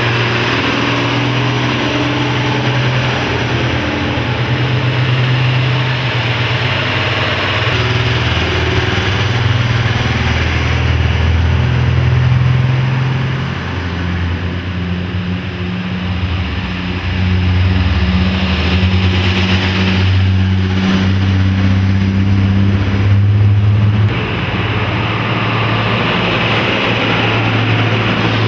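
A convoy of Indian Army Shaktiman and Ashok Leyland diesel trucks passing close by, their engines running with a steady low drone that shifts in pitch several times, heard from inside a car.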